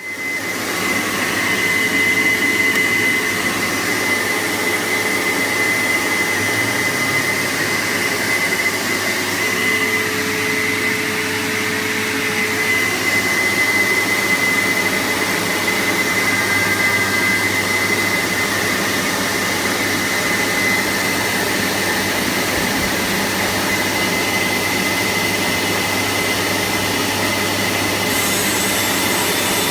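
CNC router spindle running while cutting MDF: a steady rushing motor noise with a constant high whine on top.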